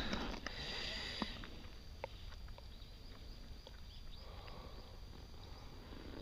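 Muffled underwater sound picked up by a camera held under the lake surface: a hiss of moving water in the first second that fades away, then a faint low rumble with scattered small ticks and clicks.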